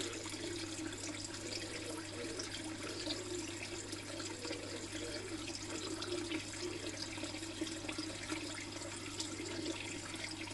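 Steady splashing and trickling of water pouring into a koi fry tank, over a low steady hum.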